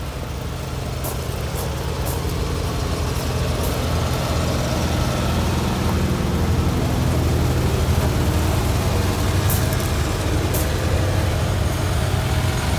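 Small gasoline engines of railway motorcars (track speeders) idling steadily, growing gradually louder, with a few short sharp clicks.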